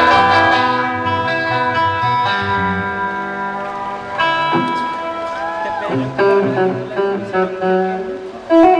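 Guitar chords played live through an amplifier: a chord struck at the start and left ringing, then a few more chord changes, and another hard strum near the end.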